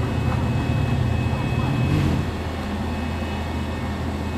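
A vehicle engine running with a steady low hum. It is louder for about the first two seconds, then eases to a lower, even level.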